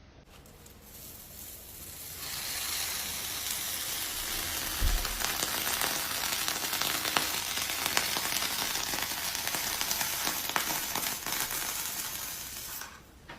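Food sizzling and crackling on a hot grill surface, a steady frying hiss with scattered pops. It builds up over the first two seconds and dies away near the end, with one dull low thump about five seconds in.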